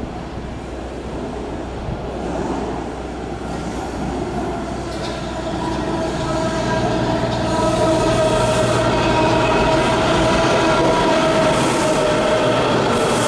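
Washington Metro train pulling into an elevated station and braking to a stop. The rumble grows steadily louder as it approaches, and from about halfway through a steady whine of several tones rises over the rumble as it slows alongside the platform.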